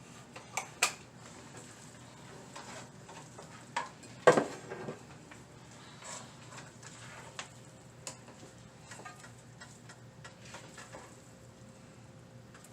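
Scattered clicks and knocks of kitchen utensils and cookware, the loudest a single clank about four seconds in that rings briefly.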